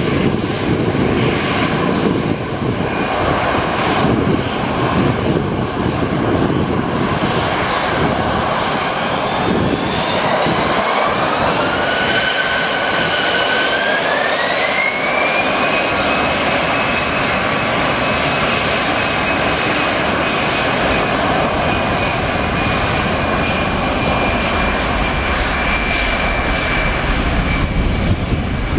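Airbus A320's twin jet engines spooling up for takeoff. At first they run with a steady rush. About a third of the way in, a whine rises in two steps with a short pause between them, as the thrust is set first part-way and then to full takeoff thrust. The whine then holds high and steady while the jet starts its takeoff roll.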